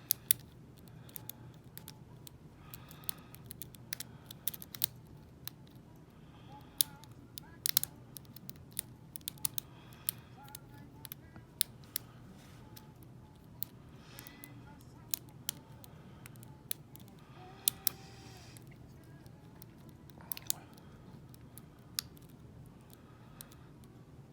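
Irregular small metallic clicks and ticks of a lock pick working the pins of a Lockwood V7 lock, sometimes several in quick succession, over a low steady hum.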